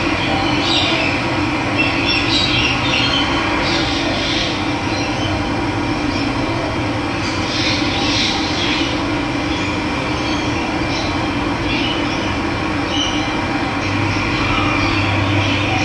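Running water, a steady rushing, with wild birds chirping in short bursts every few seconds.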